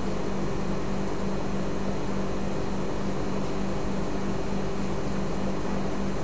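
Steady hiss with a low, even hum and no distinct events: room tone and recording noise.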